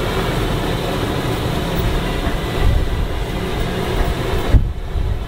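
Open-sided safari ride truck driving over rough road, heard from on board: steady engine rumble and rattling with jolts, and one sharp thump about four and a half seconds in.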